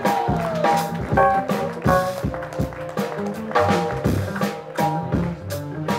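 Live jazz quartet playing an instrumental groove: a drum kit beating a steady rhythm over a walking upright bass line and keyboard chords.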